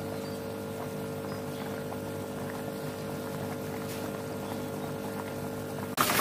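A steady low hum with a faint simmer from chicken and pumpkin broth in an aluminium wok; near the end it switches abruptly to the louder bubbling of the broth at a rolling boil.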